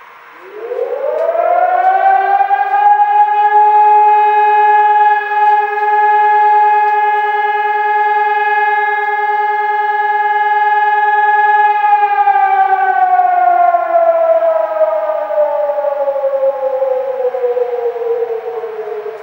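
Civil-defence warning siren sounding a test alarm, loud and close. Its pitch rises over about two seconds, holds steady for about nine seconds, then slides slowly downward and is still falling at the end.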